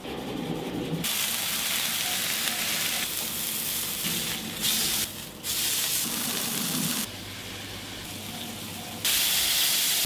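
Beef hamburger patties sizzling on a flat-top griddle, a steady hiss that steps up and down in loudness several times and is loudest in the last second, when steam rises from cheese melting under a metal dome. The first second, as the bun is sliced, is quieter.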